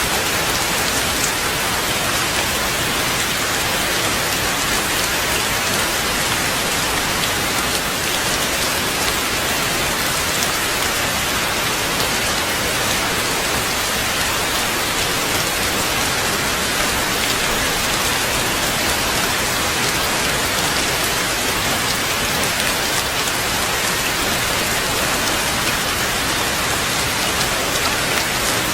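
Heavy rain falling steadily, an even, unbroken hiss of dense drops with no change in strength.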